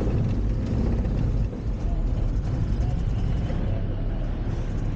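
Motorhome driving slowly, a steady low engine and road rumble with a brief dip about a second and a half in.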